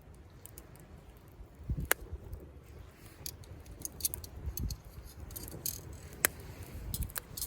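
Wood campfire crackling, with scattered sharp pops, the loudest about two seconds in and again around six seconds, over a faint low rumble of waves on the shore.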